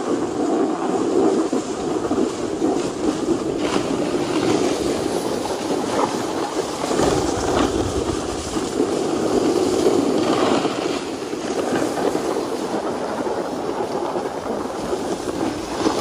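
Snowboards sliding and scraping over packed snow: a steady scraping noise with a few sharper scrapes along the way.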